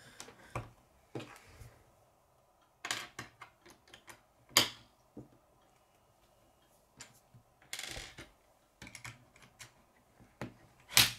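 K'nex plastic rods, connectors and wheel pieces clicking as they are handled and snapped together on a wooden tabletop: scattered, irregular clicks, the loudest just before the end.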